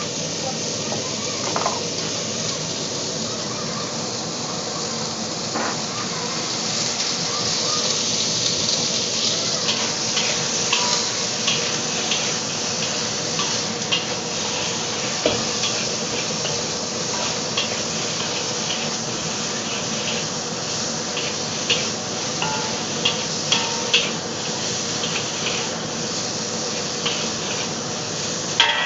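Beef slices sizzling in a hot wok while a spatula stirs and tosses them, with frequent short clinks and scrapes of the spatula against the pan.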